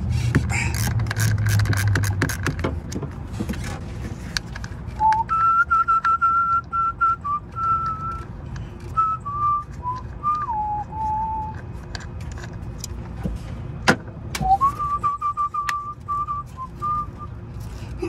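A ratchet clicking rapidly for a couple of seconds as the ignition coil hold-down bolt is loosened. Then a man whistles a simple tune in two stretches, with a few sharp clicks of parts being handled.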